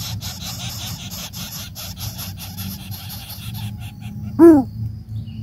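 Dry leaves and grass of a greater coucal's nest crackling and rustling as the bird works its head down into it. About four seconds in there is one short, loud call from the coucal at the nest, rising briefly and then falling in pitch.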